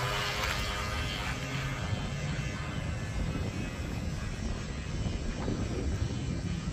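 Wind buffeting the microphone over choppy lake water, a steady low rumble. A faint whine from a small RC tugboat's electric motor fades out within the first second or two as the boat heads away.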